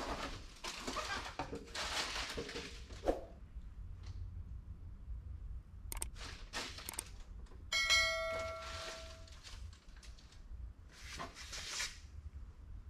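Handling noises, rustling and scraping in several short spells, with a single clear ringing ding about eight seconds in that fades over about a second and a half.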